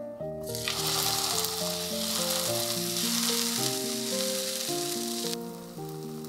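Food sizzling as it fries in a hot pan, starting about half a second in and cutting off abruptly about five seconds in, over soft piano music.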